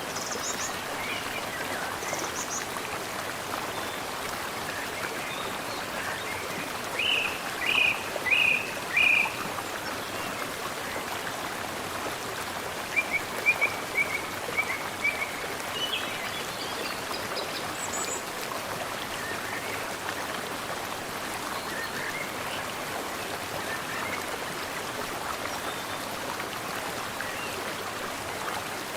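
Mountain stream flowing steadily, with birds singing over it: short series of chirps, the loudest a run of four notes about 7 to 9 seconds in and a softer run about 13 to 15 seconds in.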